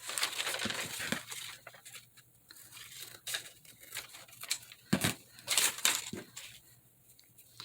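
Paper rustling and scraping in irregular rough strokes as a glued paper piece is rubbed down onto a journal page, with a few soft knocks on the table.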